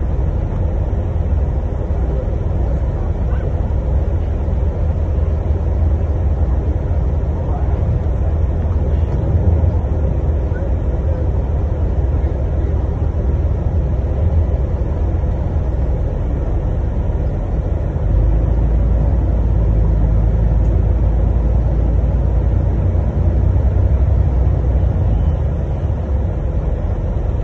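Engine and road noise of a moving vehicle heard from inside the cabin: a steady low rumble that grows louder about two-thirds of the way through, then eases near the end.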